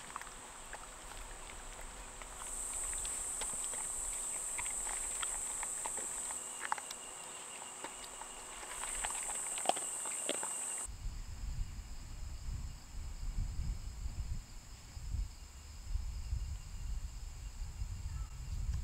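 A dog chewing and crunching kibble and vegetable pieces from a bowl, a run of short irregular clicks, over a steady high buzz of insects. About eleven seconds in this gives way to a low, uneven rumble and a steadier, thinner high insect chorus.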